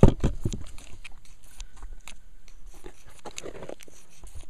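Knife blade scraping a fire-starter block, shaving it into small shavings for tinder in quick, irregular strokes, with a loud knock right at the start.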